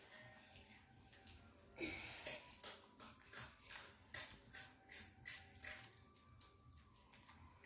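Close chewing of crisp panipuri shells: a run of about ten short crunches at a steady pace, about two to three a second.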